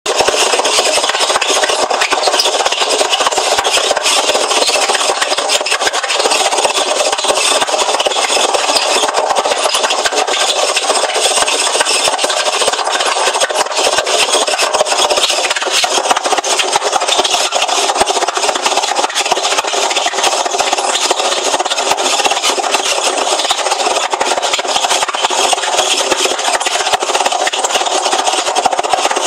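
Hoover washing machine making a loud, continuous grinding rasp, a dense scratchy rattle that never lets up.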